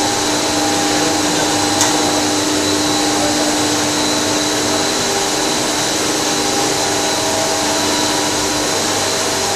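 Double-layer co-extrusion line running: a loud, steady whir of its motors and blowers, with a few constant pitched tones in it. There is one small click about two seconds in.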